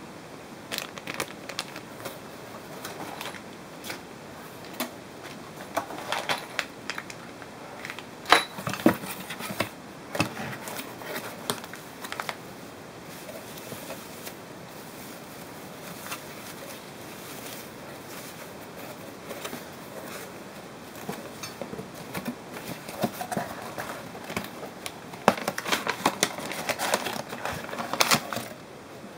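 Plastic bags, a bubble-wrap sleeve and paper crinkling and rustling as they are handled, with scattered clicks and taps. The handling comes in two busy stretches, with a sharp tap about eight seconds in.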